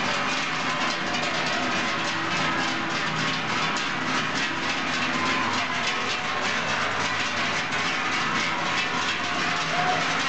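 Many large cowbells clanging together without pause on a herd of cows being driven down from alpine pasture. The bells make a dense, steady metallic clatter with ringing tones mixed in.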